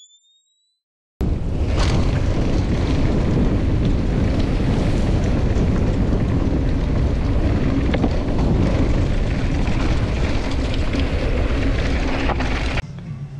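Wind buffeting the microphone with a heavy low rumble, the sound of riding footage on a fast mountain-bike descent. It starts suddenly about a second in and cuts off abruptly near the end.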